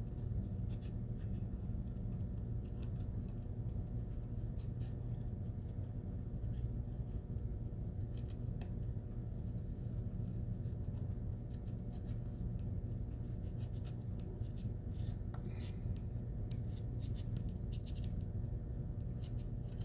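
Ball-tip embossing stylus scratching and rubbing over HVAC metal duct tape in many short, faint strokes, the unoiled ball dragging on the foil surface, over a steady low hum.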